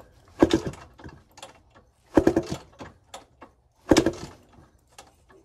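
KTM two-stroke dirt bike being kick-started: three kicks about every second and a half to two seconds, each a short clatter of the kick lever and the engine turning over. The engine does not fire.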